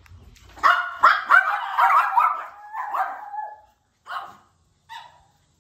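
Dogs barking: a rapid run of high-pitched barks for about three seconds, then two single barks near the end. The barking comes from dogs that are not yet used to each other.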